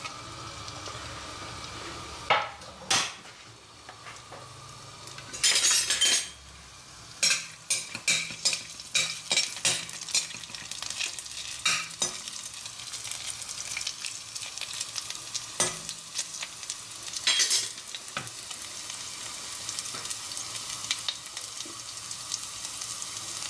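Grated ginger sizzling steadily in hot olive oil in a steel kadai, while a metal slotted spoon stirs it, scraping and clicking against the pan in a quick run of strokes through the middle.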